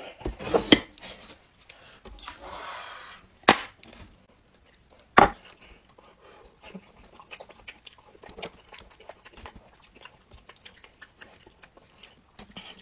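Tableware being handled: a few sharp knocks and clinks of a metal bowl and chopsticks in the first half, then a run of small quick clicks of chopsticks and eating sounds.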